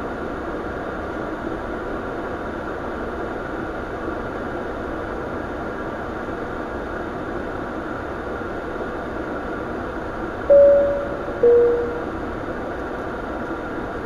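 Steady rushing hum of a Bombardier Q400 turboprop's cockpit during pushback. Near the end, a two-note electronic chime sounds, high then low, each note fading.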